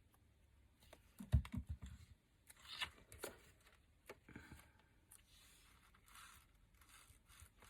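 Paper and card being handled on a craft table: scattered rustles and crinkles, with a quick run of taps and light knocks on the table about a second in.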